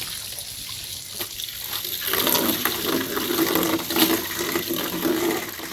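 Water running and splashing, louder from about two seconds in.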